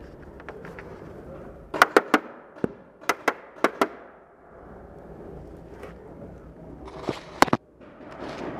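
Paintball fire: sharp cracks of paintball markers shooting and paintballs hitting. Three come in quick succession about two seconds in, one more follows, then four in two quick pairs, and two more near the end.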